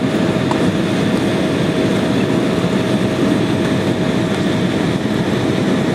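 Jet airliner cabin noise in flight, heard from inside the cabin: a steady, even rush of engine and air noise with a faint steady whine running through it.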